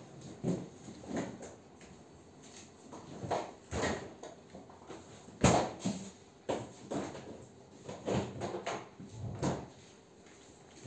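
Freezer drawer and door being opened and shut: a run of irregular knocks and clunks, the loudest about halfway through.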